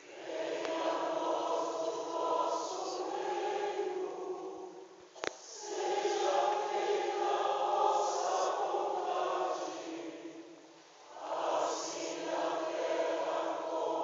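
Choir singing with a string orchestra, in long held phrases that fade out briefly about five seconds in and again near eleven seconds before the next phrase begins. A single sharp click sounds about five seconds in.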